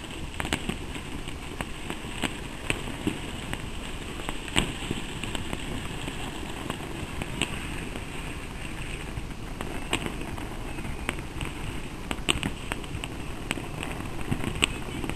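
Fireworks going off: many sharp bangs and cracks at irregular intervals over a steady background noise.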